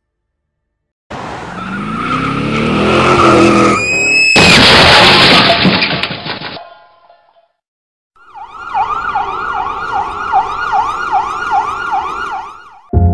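A rising screeching sound that breaks into a loud burst of noise for about two seconds. After a short gap, an emergency siren yelps, sweeping up and down about two and a half times a second for about five seconds.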